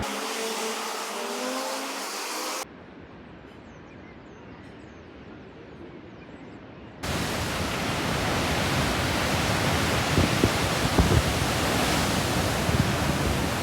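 Steady rushing noise in three abruptly cut stretches. It is quieter and duller from about three to seven seconds in, then loud again, with a few low thumps near the end.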